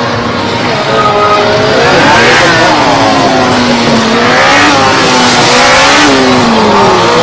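Sport motorcycle engine revving up and dropping back again and again, its pitch rising and falling several times as the bike accelerates and slows through tight turns.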